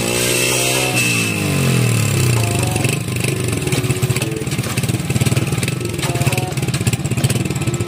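Honda TMX 125 Alpha's single-cylinder four-stroke engine running at raised revs that fall away about a second in, then settling into a steady, evenly pulsing idle.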